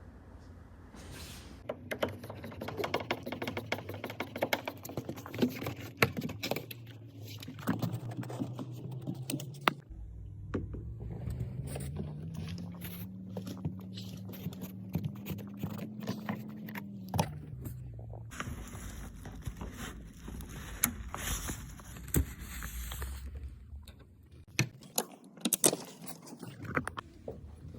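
Metal tools and parts clinking, knocking and scraping during work on a car. A motor's hum rises in pitch about ten seconds in, holds steady, then drops away about seventeen seconds in.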